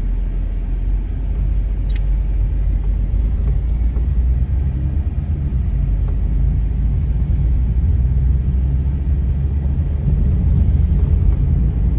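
Sedan car driving over a rough, stone-patched road, heard from inside the cabin: a loud, steady low rumble of tyres and engine.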